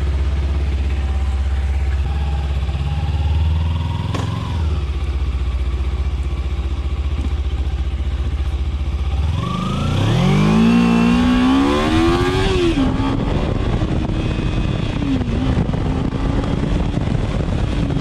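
Kawasaki Ninja 300's liquid-cooled 300 cc twin-cylinder engine idling, then pulling away about nine seconds in. Its pitch climbs steeply for a few seconds, then settles to a steady note with a brief dip a little later.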